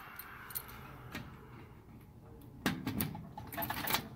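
Keys and a key ring clicking against a sticker vending machine's metal lock and front as the key is fitted. There are a few light clicks, then a louder cluster of clicks and rattles about three seconds in.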